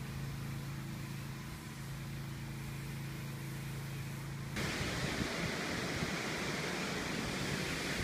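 A steady low hum with a few held low tones, then, about halfway through, a sudden cut to a louder, even rushing noise with wind buffeting the microphone.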